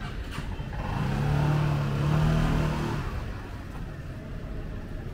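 A motor vehicle driving past close by: its engine note and road noise swell from about a second in and fade again after about three seconds, over steady low street background noise.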